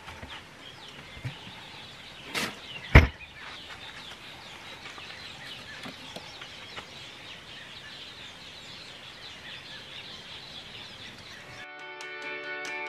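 Birds chirping in the background, with two sharp knocks about two and three seconds in as things are handled on the wooden camp kitchen box. Guitar music comes in near the end.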